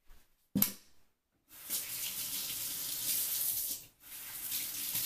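Kitchen tap running into a sink while hands are washed under it, a steady hiss of water that breaks off briefly about four seconds in and then runs on. A brief sharp sound comes just before the water starts.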